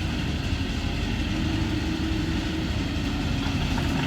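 A heavy vehicle engine running steadily, with a low, even hum.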